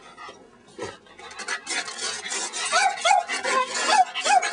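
Cavalier King Charles Spaniel giving about five short, high yipping barks in the second half, over a steady rustling hiss.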